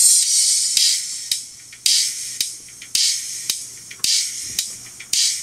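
Music played through JBL Shock Wave 4T compression horn tweeters with titanium diaphragms on their own: only the treble comes through, crisp percussion with no bass. A strong hit lands about once a second, with lighter ticks between.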